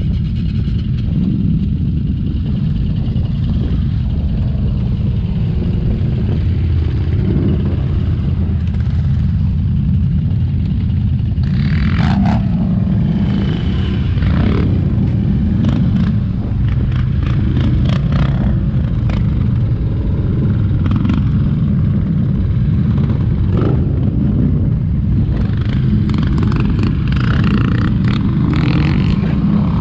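ATV engine running steadily on a rough trail, with scattered knocks and rattles from the machine over the ground.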